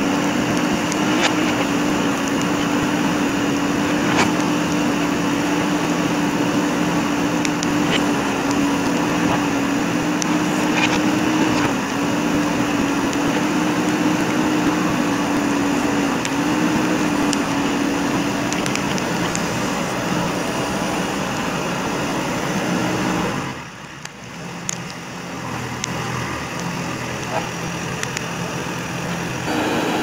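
JCB 3DX backhoe loader's diesel engine running steadily as the digging arm works, with scattered sharp cracks and clicks. About two-thirds of the way through, the engine sound drops off suddenly and runs quieter before coming back up at the end.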